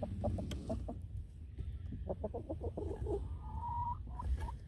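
Hens clucking softly in a series of short clucks, with a quick run of them partway through and a drawn-out higher note near the end.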